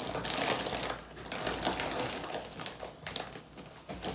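Rustling and scattered light clicks of toiletries and plastic packaging being handled and packed into a bag, busiest in the first second.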